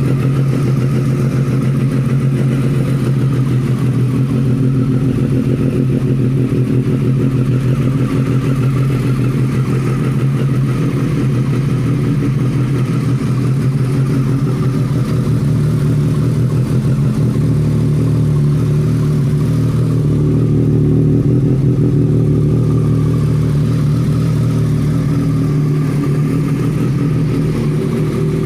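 2018 Triumph Street Triple 765 S's inline three-cylinder engine idling steadily just after a cold start, having sat unused for a week.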